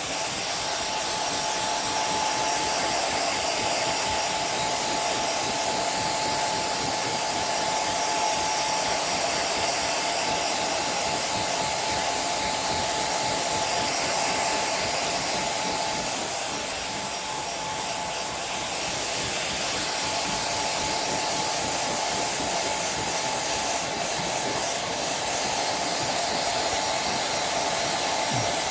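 Hair dryer blowing steadily, a constant rush of air with a thin high whine from its motor, dipping slightly in level about two-thirds of the way through.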